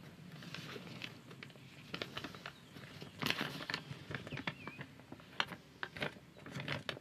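A folded sheet of paper being unfolded and handled: irregular crinkling and rustling in sharp little crackles, loudest about three seconds in.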